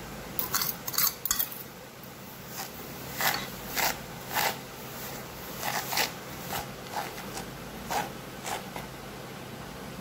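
Salt tipped from a steel bowl into a plastic tray with a few sharp scrapes and clinks of the steel spoon, then about a dozen short crunchy scrapes roughly half a second apart as the spoon spreads the salt across the tray.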